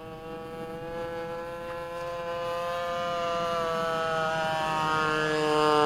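Petrol engine of a radio-controlled Fiat CR38 model plane running in flight, its buzzing note wavering a little in pitch and growing steadily louder as the plane closes in.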